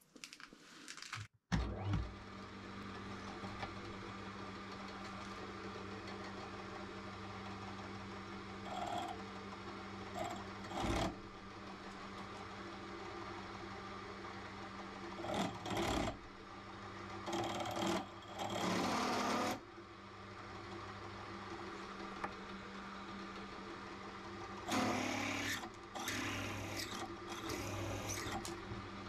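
Drill press switched on about two seconds in and running steadily at about 1000 RPM with a steady hum. Its 9 mm twist drill bit cuts into a steel block in several spells of louder, rougher cutting noise, near the middle and near the end.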